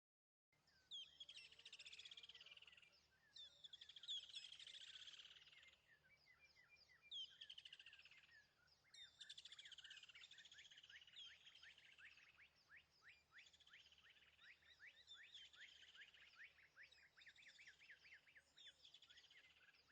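Faint birdsong: many quick chirps and rapid, repeated trills.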